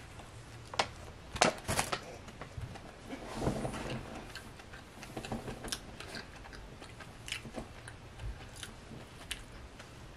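A person biting into and chewing a soft donut close to the microphone. There are a few sharp mouth clicks in the first two seconds and scattered quieter ones after.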